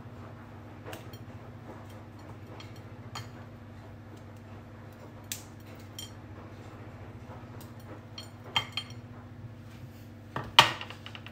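Small scattered clicks and taps of crumbled chocolate dropping onto whipped cream and a ceramic saucer and mug. A sharper clink of crockery comes about eight and a half seconds in, and the loudest, ringing clink about ten and a half seconds in. A steady low hum lies underneath.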